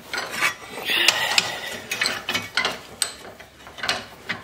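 A steel square tube being turned over in a bench vise: metal scraping and knocking against the vise jaws, with several sharp clicks.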